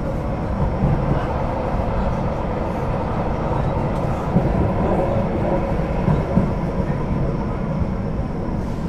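Duewag/Kiepe B80D electric light-rail car running along the line, heard from inside: steady rolling and running-gear noise with a low rumble and a faint steady tone above it.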